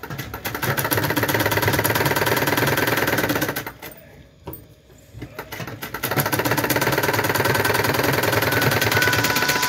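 Domestic sewing machine running fast, stitching through layered cloth in a rapid even rattle; it stops about three and a half seconds in and starts again about two seconds later.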